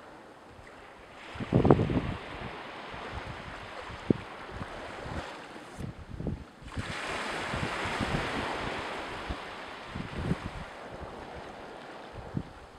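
Wind buffeting the microphone, with waves washing on the shore. A heavy low thump of wind comes about a second and a half in, and a longer wash of hiss swells about seven seconds in and fades a few seconds later.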